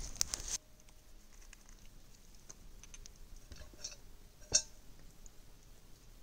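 Campfire coals crackling briefly, then after a cut faint scattered clicks and taps of hands seasoning meat in a steel pot, with one sharp click about four and a half seconds in.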